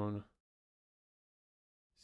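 A man's voice trails off at the start, then dead digital silence, a gap edited out of the narration, until speech starts again at the very end.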